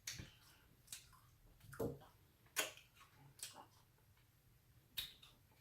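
Quiet eating noises close to the microphone: about six short, irregularly spaced clicks and smacks of a mouth.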